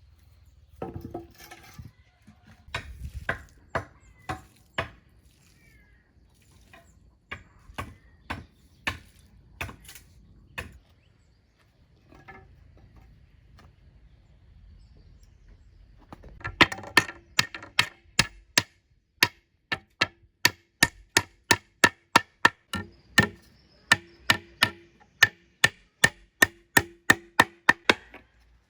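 A hand tool striking wood, with sharp, ringing blows: scattered strikes at first, then after a pause a steady run of about two to three blows a second.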